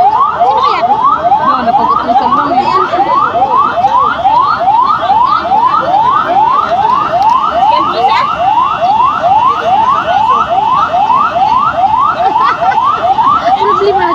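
Electronic siren in its yelp mode: quick rising sweeps repeating close to three times a second, steady and loud.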